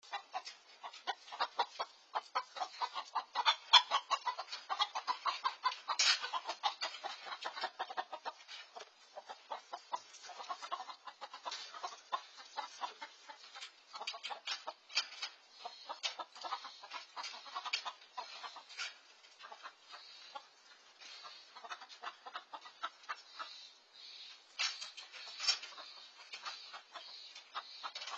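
A flock of backyard chickens clucking in quick, repeated short calls, busiest and loudest over the first several seconds, then sparser, heard through a Nest security camera's microphone.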